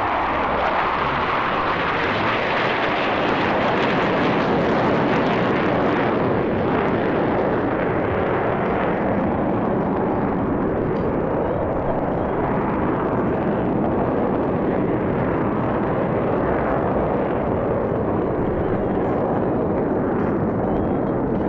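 Jet engines of a five-plane formation of Blue Angels fighter jets flying overhead, a loud, continuous rushing noise. It is sharpest in about the first six seconds and then turns duller.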